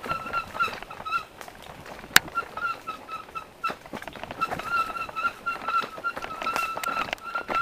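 Mountain bikes rattling and clicking over a dirt trail, with a sharp knock about two seconds in, under a high squeak repeated several times a second.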